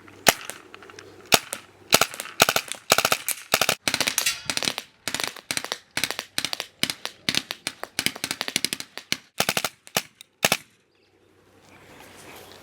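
Tippmann A5 paintball marker with a response trigger, running on CO2, firing a long string of rapid sharp pops, several a second and unevenly spaced, that stops near the end.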